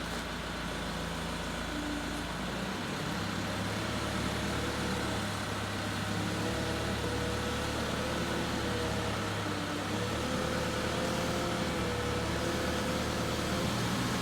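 Forklift engine running while it moves a heavy load, its note stepping up about three seconds in, with a faint wavering whine above it.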